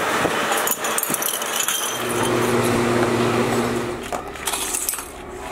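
Workshop machinery: a hiss with scattered clicks, then a steady machine hum about two seconds in. Near the end come light metallic clinks as steel springs are dropped into oil filter canisters.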